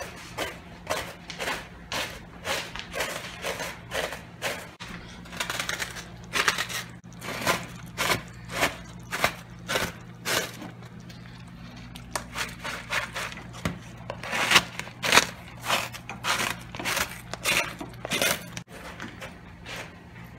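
A utensil clicking and scraping against a plastic mixing bowl as food is mashed and mixed by hand, in short irregular strokes about one or two a second. A steady low hum runs underneath.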